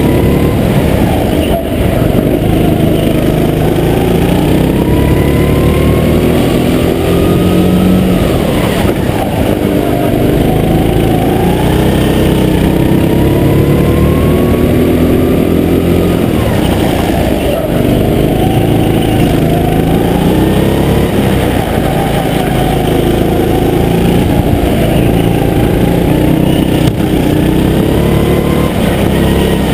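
Go-kart engine running hard as the kart laps. Its pitch climbs slowly for several seconds as the kart accelerates, then drops sharply when the driver lifts off for a corner, about four times over.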